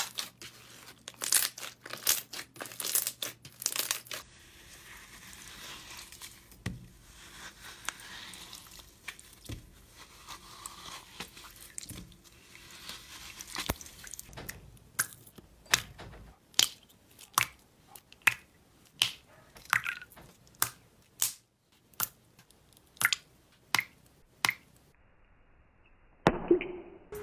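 Slime worked by hand: dense crackling pops as clear slime is squeezed, then soft squishing, then a run of sharp separate pops about one a second.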